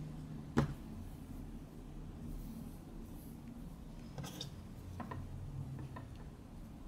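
Quiet handling noise as crocheted pieces are held together for sewing: one sharp click about half a second in, a few light clicks around four seconds in, then faint ticks, over a low steady hum.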